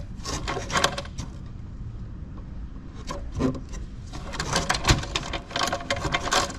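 A gloved hand handling parts inside a metal power assembly among copper bus bars and circuit-breaker terminals, making irregular light clicks and scrapes of metal being touched and moved, busiest in the last couple of seconds.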